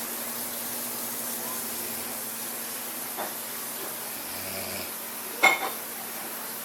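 Steady background hiss with a faint click about three seconds in and a sharper, louder click or knock about five and a half seconds in.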